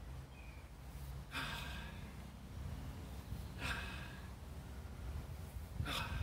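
A man breathing out forcefully through the mouth three times, about every two seconds, each a short breathy rush: release breaths in a qigong tension-release exercise.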